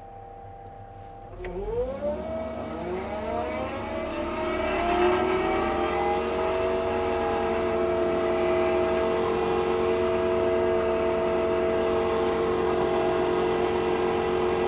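Excavator-mounted forestry mulcher spinning up: the 309 excavator's engine and hydraulic mulching head rise in pitch about a second and a half in, then settle into a loud steady whine at working speed.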